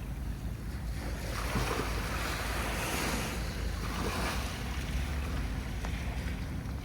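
Sea waves breaking and washing onto the shore, coming in several swells of hiss a second or so apart, over a steady low rumble.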